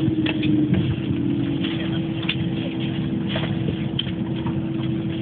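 Airbus A321 cabin noise at the gate: a steady hum with one held tone, and scattered light clicks and knocks as passengers get up.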